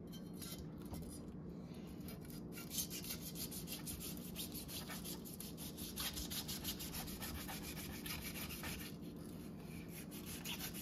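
A kitchen knife sawing through pineapple on a wooden cutting board: a quick, even run of scraping strokes that starts about two seconds in and fades near the end.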